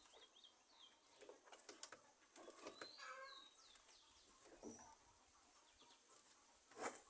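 Near silence, with faint distant bird calls, including chicken-like clucks, and a couple of soft knocks near the end.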